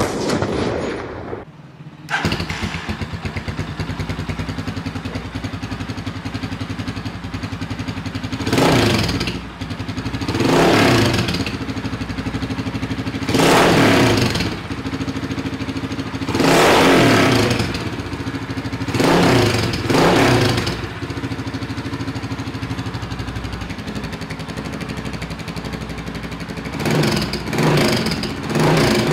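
Rusi Classic 250 motorcycle engine idling through its aftermarket exhaust with a newly fitted silencer (dB killer), blipped with the throttle several times in short revs that fall back to idle. This is the exhaust note with the silencer in, fitted to make the bike quieter.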